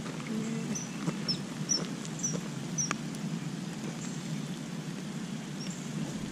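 Steady rain patter and the rush of river water running off the dam, with a small bird's short high chirps repeated about every half second over the first three seconds and once more near the end.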